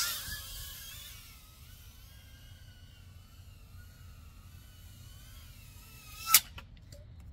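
Hisingy Stargazer FPV drone's motors and propellers whining faintly, the pitch wavering up and down with the throttle. About six seconds in comes a single sharp knock as the drone crashes, and the whine stops.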